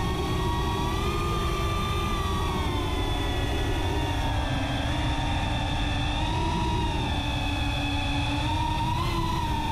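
Brushless motors and propellers of a CineLog35 FPV quad heard from its onboard camera: a steady high whine in several tones, its pitch wavering with the throttle and lifting briefly about nine seconds in, over a low rushing noise.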